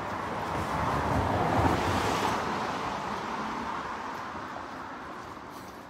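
A car driving past on the wet street, its tyres swishing on the wet road: the sound swells to a peak about two seconds in and then slowly fades away.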